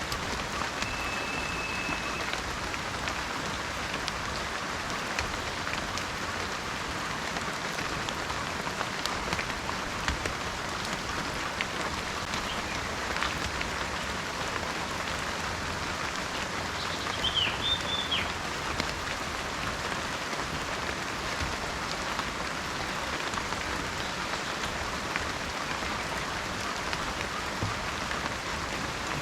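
Steady heavy rain, a constant hiss with individual drops ticking through it. A bird whistles one held note about a second in, and a short chirping call sounds a little past the middle.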